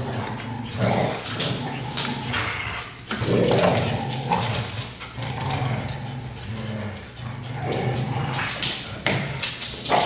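Pit bulls and a Belgian Malinois growling and snarling in play as they tug over a rubber Kong toy: a continuous low growl that swells louder about a second in, again around three and a half seconds, and near the end.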